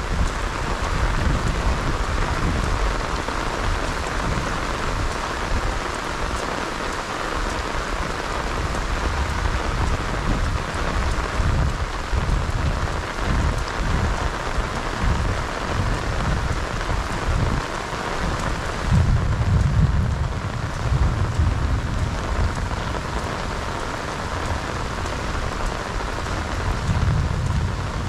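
Heavy rain falling onto floodwater, lily pads and grass: a steady, dense hiss of drops. A low rumble swells underneath now and then, strongest about two-thirds of the way through.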